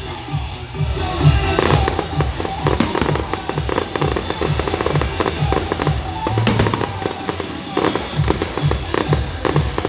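Aerial fireworks bursting and crackling in quick succession, over music with a steady bass beat.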